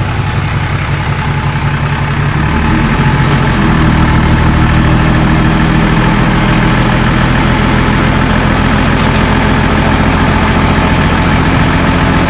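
Diesel engine of a six-wheel dump truck running, its speed raised about three seconds in and then held steady to drive the hydraulic hoist as the loaded bed tips up to dump soil.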